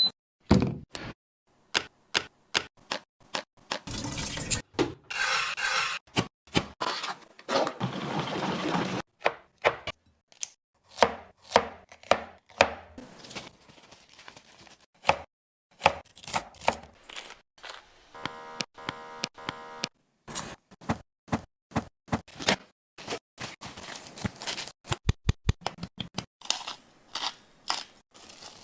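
Irregular knocks, taps and clatter of kitchen items being handled and set down, with a few short stretches of rustling.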